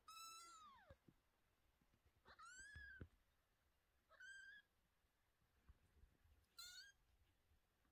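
Newborn kittens mewing: four thin, high-pitched mews a second or two apart, the first sliding down in pitch.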